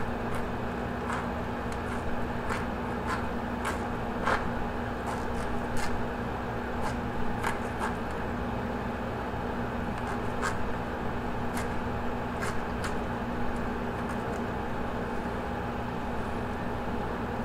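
Steady mechanical hum with irregular short clicks and scrapes over it, from a knife working the skin loose from a largemouth bass.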